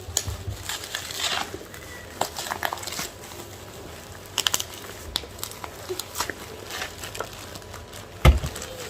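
Packaging crinkling and rustling as a parcel of baking pans is unwrapped by hand, with scattered light clicks and taps, and a low thump near the end.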